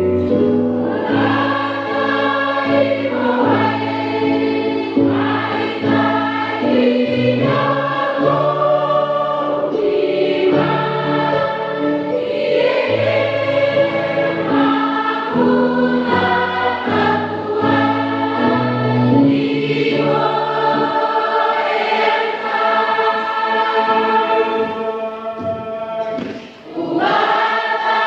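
Church choir singing a hymn in parts, held notes over a low bass line. The bass notes drop out about twenty seconds in, and after a brief break near the end the voices come back in.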